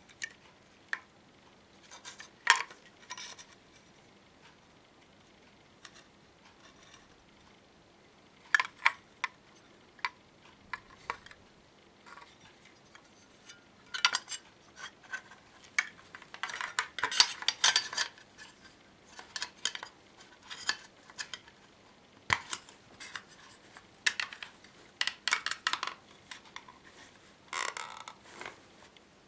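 Clicks, taps and rattles of hands handling a homemade chronograph's metal-and-plastic case and fitting a 9-volt battery to its snap connector, in irregular clusters with the busiest stretch in the middle.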